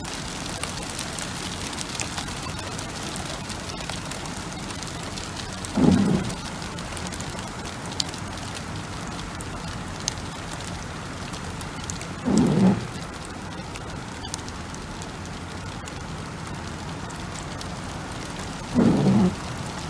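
Rain and small hail pattering steadily on the car, heard from inside it, with fine clicks of individual hits. Three short, louder low sweeps come at even spacing, about six seconds apart.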